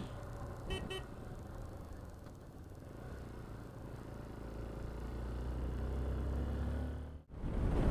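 Motorcycle engine and road noise while riding, the low rumble building toward the end. There is a short double horn beep just under a second in, and the sound cuts out abruptly near the end.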